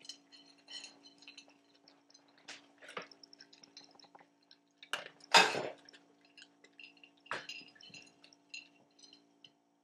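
Dog eating dry kibble from a plate: scattered small crunches and clinks of food and teeth against the plate, with a few louder mouthfuls, the loudest about five seconds in.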